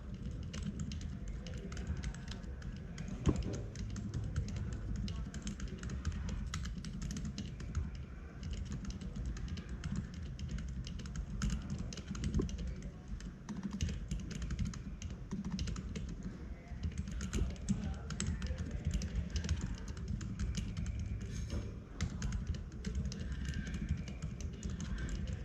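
Continuous typing on a UT47.2 40% mechanical keyboard with Gazzew Bobagum silent linear switches, lubed with Krytox 205g0, and KAT Alpha keycaps: a steady, rapid run of key strokes.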